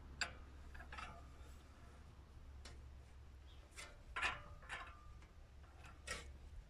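Light, irregular metallic clicks and clinks from a flat metal strip and a vise-mounted bending jig being worked by hand. There are about eight clicks spread over the few seconds, and a few of them ring briefly.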